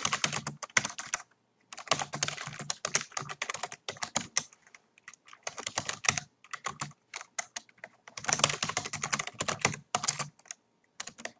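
Typing on a computer keyboard: quick bursts of keystrokes separated by short pauses.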